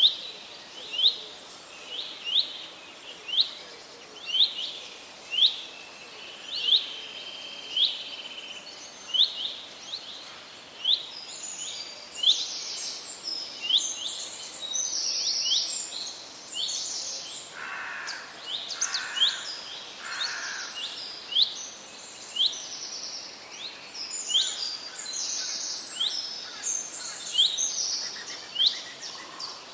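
Birds singing: one bird repeats a short rising chirp about once a second, and from about a third of the way in other birds join with higher, busier calls over a faint steady hiss.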